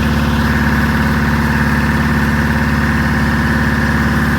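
Engine idling steadily at an even speed.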